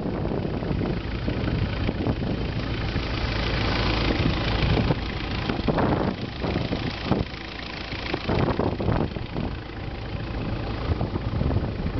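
Long-tail boat's inboard engine running steadily underway, with wind gusting on the microphone.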